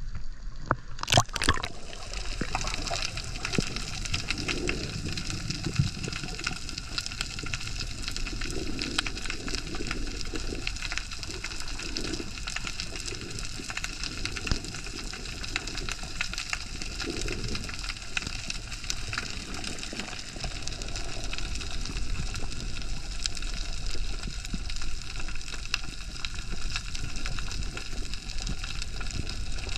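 Water sloshing at the sea surface, then a splash about a second in as the camera goes under, followed by a steady underwater hiss with fine crackling and soft gurgles.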